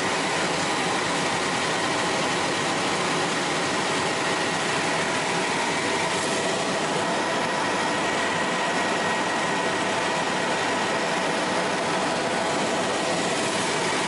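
Bell 206L4 LongRanger turbine helicopter in cruise, heard from inside the cockpit: a steady rush of rotor, engine and airflow noise with a few steady whining tones riding on it.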